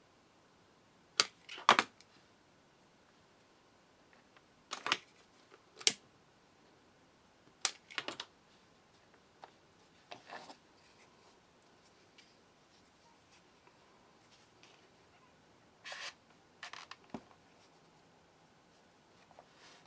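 Scattered sharp clicks and short handling knocks, about ten of them at uneven gaps, over quiet room tone.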